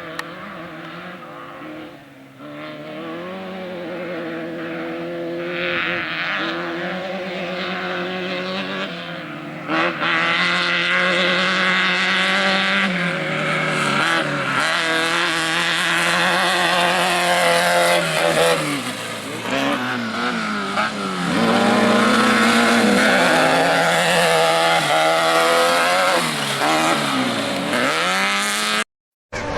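Off-road race vehicle engines running hard at high revs, pitch rising and falling as they accelerate and ease off, getting louder about a third of the way in. The sound cuts out abruptly near the end.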